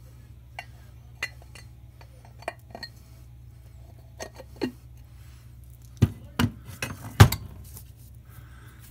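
Metal parts of a brake-lathe disc feed gearbox clinking and knocking as its two housing halves and gear shaft are fitted together by hand: scattered light taps, with the sharpest knocks about six to seven seconds in.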